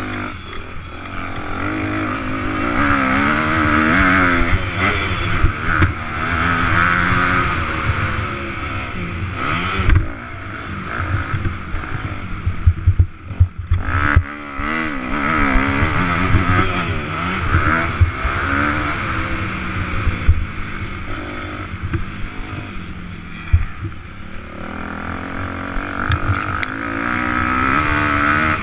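Motocross dirt bike engine heard from on board while racing, revving up and down repeatedly as the rider works the throttle and gears. Its note drops out briefly about halfway through, with a few sharp knocks from the bike over rough ground.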